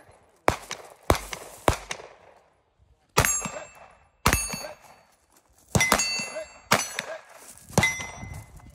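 A pistol fired about eight times at an irregular pace. Most shots are followed by the ringing clang of a hit steel target.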